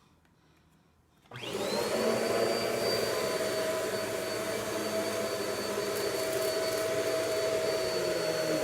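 Vacuum cleaner switched on about a second in, its motor whining up to speed and then running steadily.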